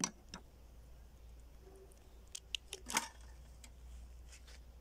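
Hard plastic skeleton pieces clicking and clacking as they are handled and pressed into each other's joints: a scattered series of sharp clicks, the loudest at the start and about three seconds in.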